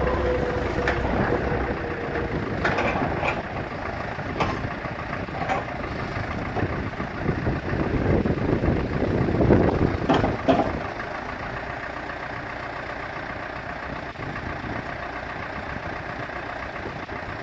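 CAT 420D backhoe's diesel engine running, with a few sharp knocks in the first ten seconds and a louder stretch about eight to ten seconds in, then settling to a steady idle.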